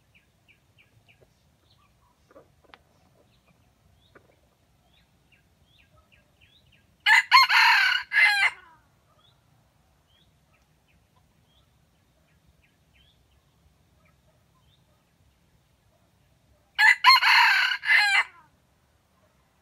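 Red junglefowl rooster crowing twice, about ten seconds apart, each crow loud and about a second and a half long.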